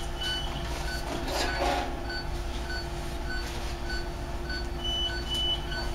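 Operating-room patient monitor's pulse beep: short, even beeps about every 0.6 s, roughly 100 a minute. A higher, longer equipment tone sounds twice, near the start and about five seconds in, over a steady electrical hum and some soft rustling.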